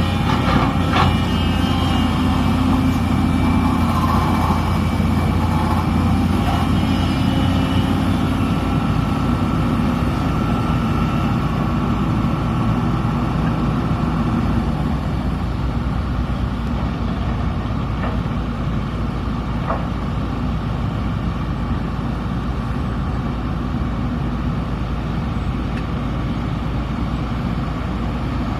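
Diesel engine of a SANY SY330H excavator running steadily with a deep hum, a little louder with extra higher-pitched whine in the first several seconds, then settling slightly lower.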